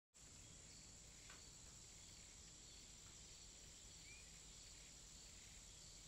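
Near silence: a faint steady hiss with a thin high whine.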